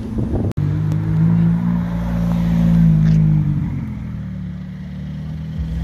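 McLaren sports car's twin-turbo V8 accelerating away: the exhaust note rises for about two seconds, then fades as the car pulls off. A brief cut in the sound comes about half a second in.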